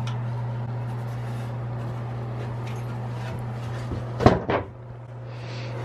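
Two short knocks close together about four seconds in as a wooden cabinet door is handled, over a steady low hum.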